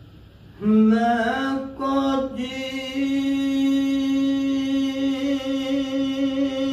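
A man singing Sufi kalam unaccompanied: about half a second in his voice enters with a short rising phrase, then after a brief break he holds one long, steady note.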